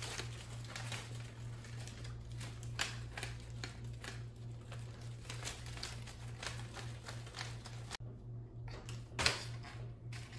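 A folded-paper accordion fidget rustling and crinkling in small, irregular ticks as it is dangled, stretched and bounced by hand, with one louder rustle near the end. A steady low hum runs underneath.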